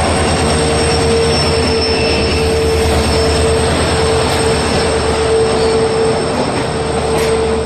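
Express train rolling past close by: a steady, loud rumble of wheels on rail with a held wheel squeal.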